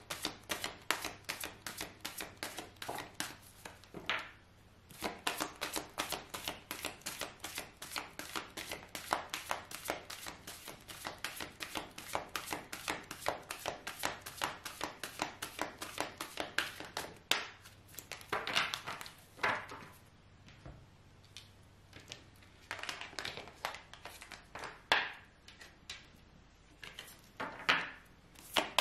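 A deck of fortune-telling cards being shuffled by hand: a fast, even run of card flicks, several a second, for the first two-thirds, then slower separate swishes of cards being moved.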